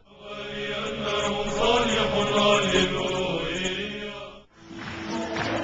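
Chant-like singing of a Christian hymn with long held notes over accompaniment. It breaks off about four and a half seconds in, and a different song starts.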